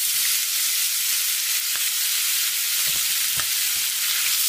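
Loud, steady sizzling of diced pork, marinated with garlic, parsley and white wine and dusted with flour, in very hot frying oil as it is slid into the pan from a cutting board. A few faint clicks sound through it.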